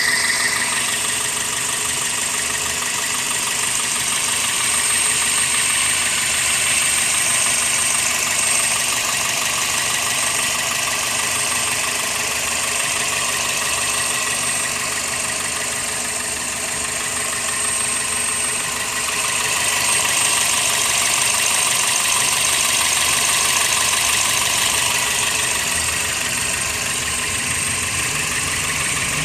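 1999 Toyota Corolla's four-cylinder engine idling steadily once warmed up, the state in which its misfire goes away.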